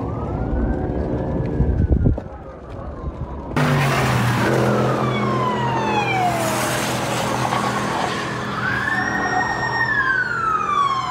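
Emergency vehicle siren wailing, its pitch slowly sweeping up and down. It is faint at first and becomes much louder after a sudden cut about three and a half seconds in, with a steady low hum under it.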